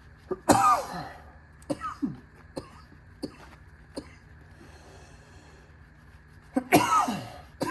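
A man's voice: two loud short bursts that fall in pitch, about half a second in and again near the end, with a few softer short sounds in between.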